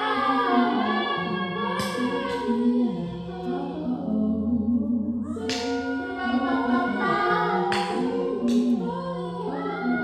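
A woman's unaccompanied singing layered with a vocal loop, so that several of her sung notes sound at once in harmony like a small choir, with held notes that shift every second or so and a few short hissing sounds between phrases.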